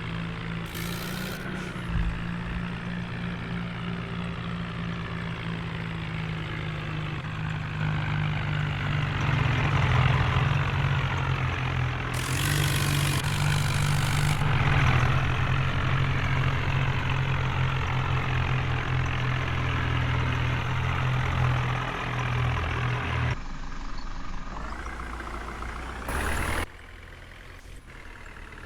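Heavy diesel earth-moving machinery running steadily, the engine working harder and louder through the middle. The steady engine note stops about 23 seconds in, and the overall sound drops sharply a few seconds later.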